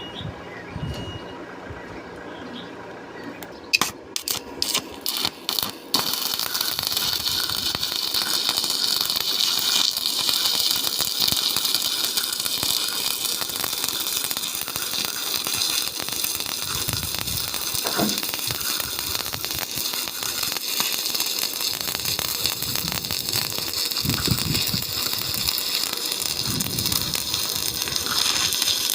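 Stick welding arc on rusty steel plate: a few short sputters as the electrode is struck about four seconds in, then a steady crackle and hiss as the bead is run.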